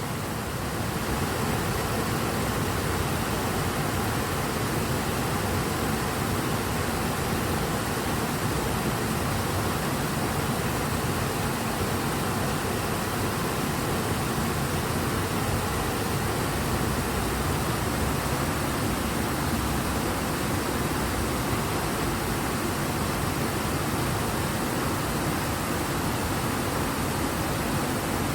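Ebro river running fast and full: a steady, dense rush of water.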